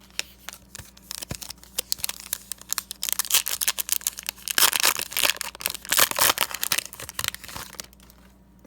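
Panini Prizm Draft Picks card pack wrapper being torn open and crumpled: scattered crinkles at first, building about three seconds in into dense tearing and crinkling that stops shortly before the end.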